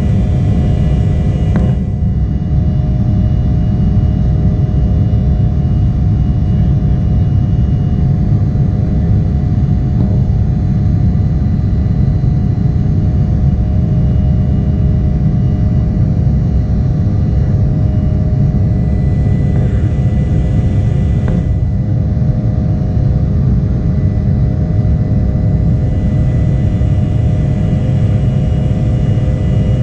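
Cabin noise of an Embraer ERJ-175 jet under high thrust: a steady deep rumble with the humming drone of its GE CF34 turbofan engines over it, heard from inside the passenger cabin.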